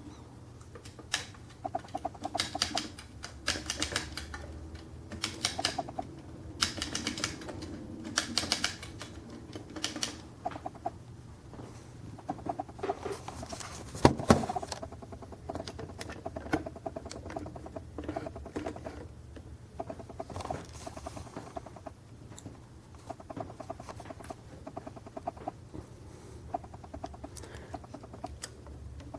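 Winch drum of a 1/50 scale diecast drill rig model turned by hand to lower the line: runs of rapid small clicks with pauses between them, and one sharper click about halfway through.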